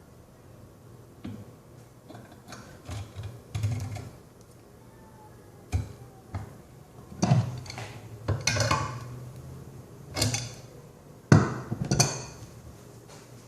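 Copper pipe and fittings being handled on a work surface: a series of irregular clinks and knocks, the loudest clanks coming in the second half.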